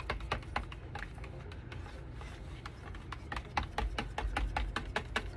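A plastic stir stick clicking and scraping against the sides of a plastic tub while stirring a thick white acrylic pouring mix: a quick, irregular run of clicks that gets busier about three seconds in, with a few low thumps.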